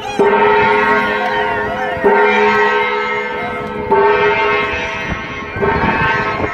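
Hand-held brass gong struck with a mallet four times, about two seconds apart, each stroke ringing on with a steady, slowly fading tone.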